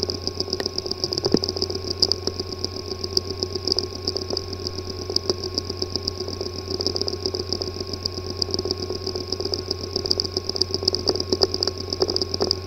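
Hard disk drive with a physically damaged disk assembly running: a steady hum and whine overlaid by rapid, irregular clicking and ticking. This sound is the symptom of physical damage inside the drive's disk assembly.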